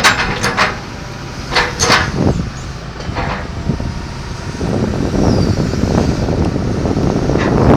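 Tracked excavator's diesel engine running, with several sharp metallic clanks and squeaks in the first half; about halfway through the engine noise gets louder and denser.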